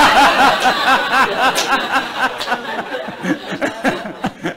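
Lecture audience laughing together, loudest at the start and dying away over about three seconds.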